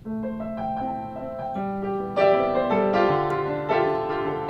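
Solo piano introduction to a song: broken chords played one note after another, growing louder a little over two seconds in.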